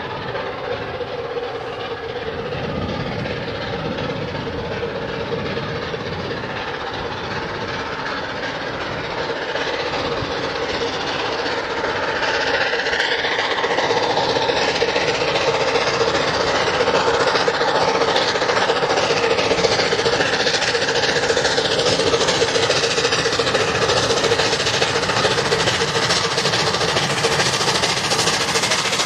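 Streamlined LNER A4 Pacific steam locomotive working a passenger train, its rapid exhaust beats growing louder from about halfway as it draws near and passes.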